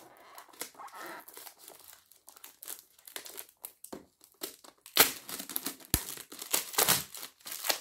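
Packaging crinkling and tearing as it is unwrapped by hand, with louder bursts about five seconds in and again near seven, and a soft thump just before six seconds.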